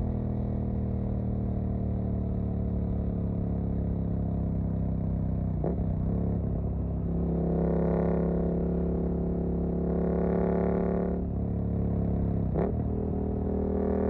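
Suzuki GSX-8S parallel-twin engine running through a Jeskap EVO aftermarket exhaust while riding, the note swelling under throttle in places. The note breaks briefly twice, about six and twelve and a half seconds in.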